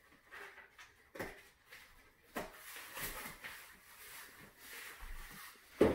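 Fabric wagon canopy being unclipped and lifted off its frame: a few sharp plastic clicks, with nylon fabric rustling in between and a louder click near the end.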